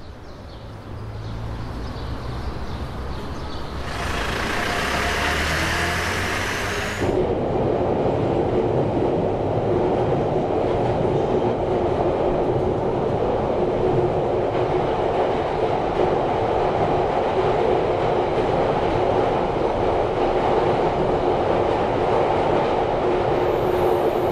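Metro train running, heard from inside the carriage. The noise builds over the first few seconds into a hissing rush with a faint rising whine. About seven seconds in it changes abruptly to a steadier, lower running rumble with a constant hum.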